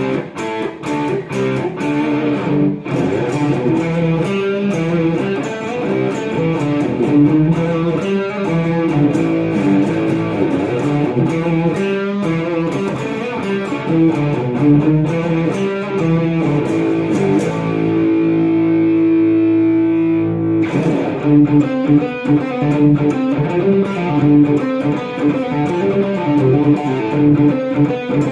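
Electric guitar, an Epiphone Les Paul Studio with humbuckers played through a Marshall MG50FX amp, playing a run of changing notes. One note is held for about two and a half seconds about two-thirds of the way through.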